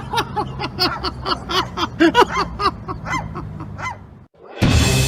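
An animal calling over and over in quick, short calls, about four or five a second, which stop about four seconds in. Loud music starts near the end.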